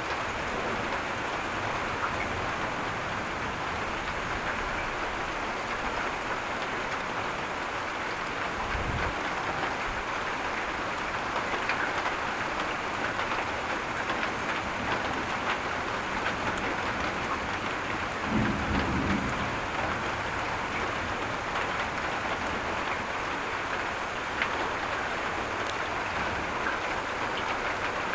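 Steady rain falling during a thunderstorm. Two short low rumbles of thunder come through: a faint one about a third of the way in, and a louder one about two-thirds in.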